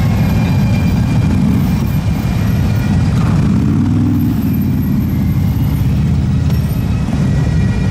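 Police motorcycles riding slowly past in a column, their engines giving a steady low rumble, with one bike's engine note swelling as it passes close about three to four seconds in.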